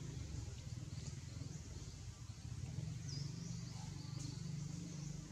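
Outdoor ambience among trees: a steady low rumble, with scattered faint, short high chirps and one brief high note that falls in pitch a little past halfway.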